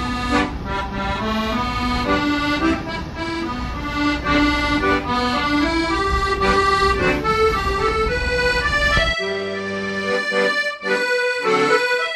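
Background music led by an accordion playing a melody; the low accompaniment drops out about nine seconds in.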